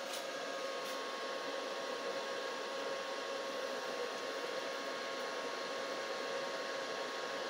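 Cooling fan of a switched-on Elektrolite QX-220 inverter welding machine running steadily: an even whirr with a thin, steady hum through it, the machine idling with no arc struck.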